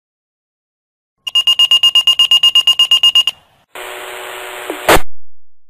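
Fire pager alerting: rapid high electronic beeping, about ten beeps a second for two seconds. After a brief pause the pager opens to about a second of radio hiss, which cuts off with a sharp squelch burst. The alert signals an incoming fire dispatch call.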